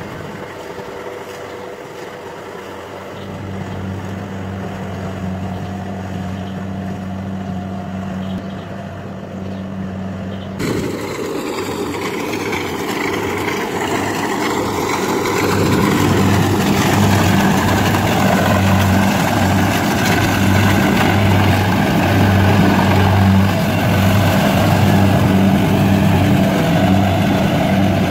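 Kubota combine harvester's diesel engine and threshing machinery running steadily as it cuts ripe rice. The sound changes abruptly about ten seconds in and gets louder, with a throbbing low hum, from about fifteen seconds.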